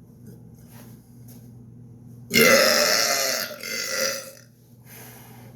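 A man's loud, long burp starting a little over two seconds in, lasting about two seconds, with a short dip near its end before it trails off.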